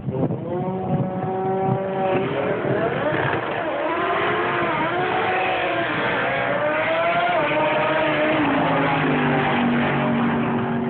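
Drag-racing cars accelerating hard down the strip, the engine pitch climbing and dropping back at each gear change, several shifts in a row. The pitch then falls steadily over the last few seconds.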